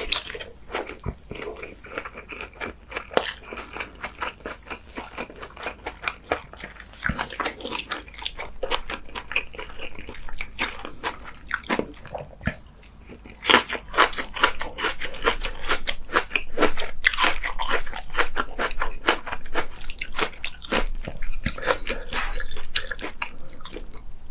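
A person eating close to the microphone: biting, crunching and chewing with many small wet clicks. It gets louder about halfway through.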